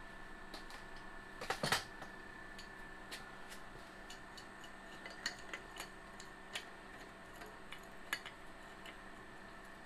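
Metal hand tools clinking against a harmonic balancer installer tool while a wrench is set on its nut. A quick cluster of louder clanks comes about one and a half seconds in, then scattered single clicks.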